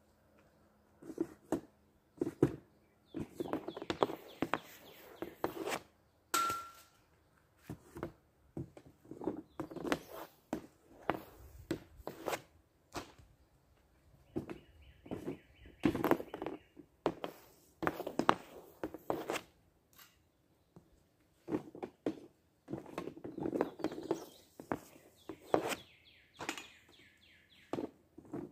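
Hockey stick working pucks on a homemade shooting pad: repeated clacks and scrapes of stick and puck on the pad, in clusters of knocks a few seconds apart as each shot is taken. A single short chirp sounds about six seconds in.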